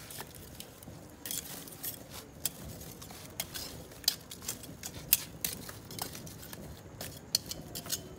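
Metal tongs poking and turning burning charcoal in a brick fire pit: irregular sharp clicks and clinks of tongs against coals, over a faint low rumble of the fire.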